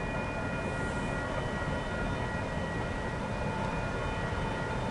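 Grade-crossing signal bells ringing faintly and steadily at a distance, over a low steady rumble.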